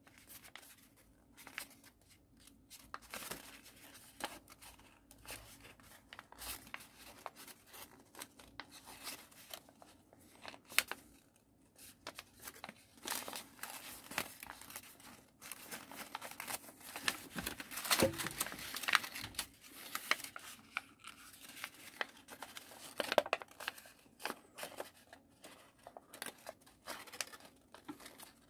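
A sheet of paper being folded and creased by hand, crinkling and crackling in irregular short snaps as the folds are pressed and shifted.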